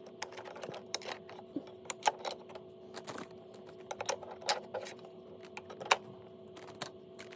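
Hard plastic parts of a Hasbro HasLab HISS toy tank clicking and tapping irregularly as accessory pieces are handled and swapped on it, the loudest click about six seconds in. A faint steady hum runs underneath.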